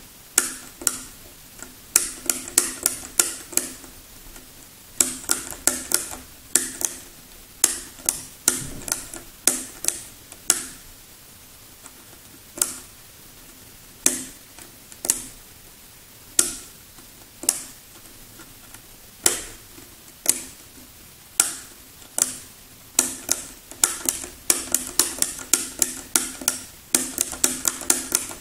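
Hard plastic clicking from a hand-worked LEGO Technic 90° stepper mechanism as its lever is pushed back and forth and the mechanism steps. Sharp clicks come singly and in quick runs of several, with pauses of a second or two between.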